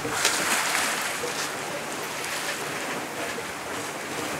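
Steady rush of sea water and wind around a sailboat under way, louder for about the first second, then even.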